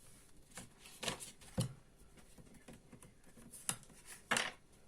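Tarot cards being handled on a table: a handful of short, irregular taps and flicks.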